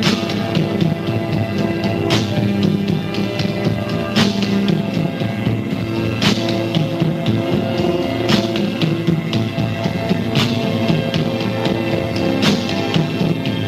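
Live rock band recording: slow, sustained chords over bass, with a sharp drum or cymbal hit about every two seconds.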